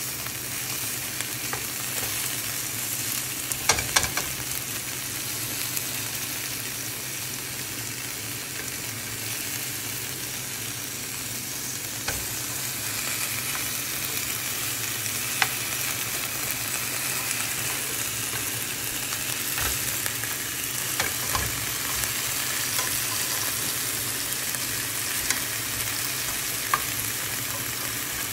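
Chicken legs frying skin side down in a skillet over medium-low heat: a steady sizzle of the skin crisping, broken by sharp clicks and pops, a cluster of them about four seconds in.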